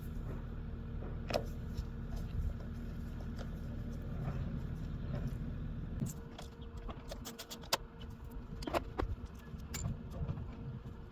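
Tools and small metal parts clicking and rattling as the mower's carburetor, filter housing and mounting screws are put back on, over a steady low hum that drops away about six seconds in.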